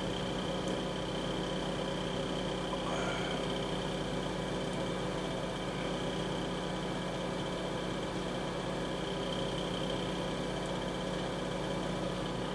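Steady mechanical hum of a small motor or fan, with a few constant tones and a low drone.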